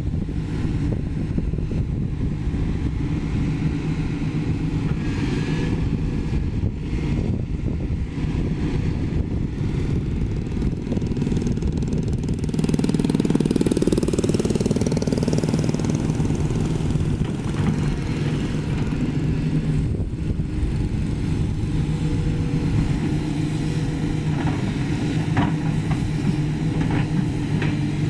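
Sany SY215C excavator's diesel engine running steadily, growing louder for about three seconds midway through, with a few short knocks near the end.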